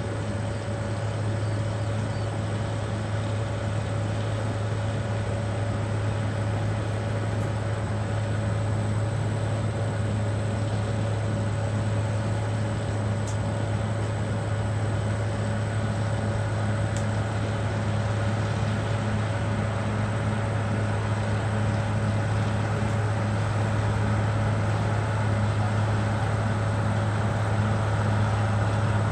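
Caterpillar D6R XL bulldozer's diesel engine running steadily with a deep hum, growing slightly louder near the end.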